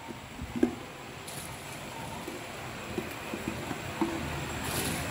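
Automatic bottle packing machine running steadily, with scattered light knocks of plastic bottles moving through it and a brief hiss of compressed air near the end.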